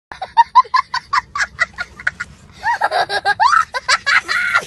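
A young boy laughing hysterically: a fast run of short, high 'ha' sounds, about five a second, then high squealing whoops with sliding pitch in the second half.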